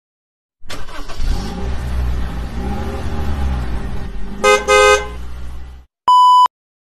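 A vehicle engine runs with a low rumble, and a horn honks twice in quick succession about four and a half seconds in. A short steady electronic beep follows near the end.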